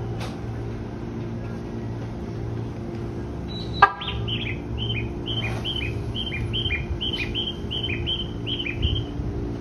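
JR 205 series 1100 electric train's horn giving one short, light toot, over the steady hum of the standing train. Right after it a bird chirps rapidly and repeatedly, a string of short falling notes for about five seconds.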